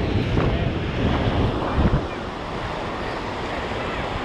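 Gulf surf breaking and washing up a sandy beach, with wind buffeting the microphone in a steady low rumble, a little louder in the first two seconds.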